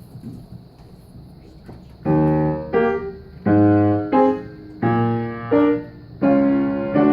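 Piano accompaniment playing the introduction: after about two seconds of quiet room noise, four held chords start, each followed by a short note.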